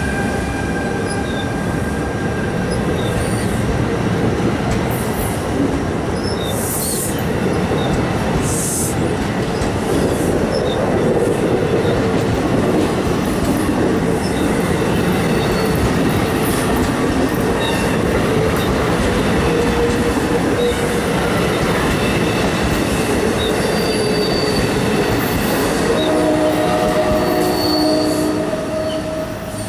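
NJ Transit electric push-pull train of Multilevel bilevel coaches rolling past at close range as it slows for its station stop, a steady rumble of steel wheels on rail. Thin high squeals come in during the second half, and the sound fades just as the trailing cab car draws away.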